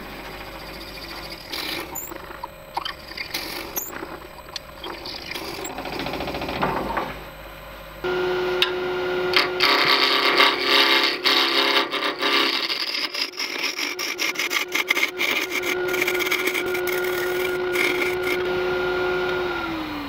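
Laguna wood lathe spinning a small stabilised masur birch blank. A drill bit bores into it first, with irregular scraping and clicks. From about eight seconds in, a turning tool cuts it with a harsh shaving and scraping noise over the lathe's steady whine, and the whine drops in pitch right at the end as the lathe winds down.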